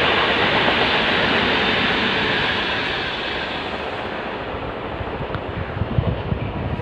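Mumbai suburban EMU local train running past on the rails, its wheel and carriage noise a steady rushing rattle that fades as the train draws away. A few low thumps come near the end.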